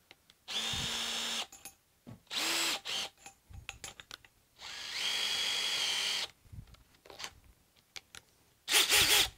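Cordless brushless hammer drill (Dewalt) running unloaded in four short trigger bursts, the longest about a second and a half and rising in pitch as it spins up, while the chuck is spun open and closed to change to a blue auger bit.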